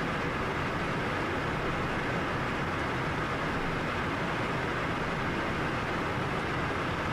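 Steady rushing cabin noise inside a Cessna Citation business jet in flight, made by air streaming past the fuselage and the turbofan engines, as the jet descends.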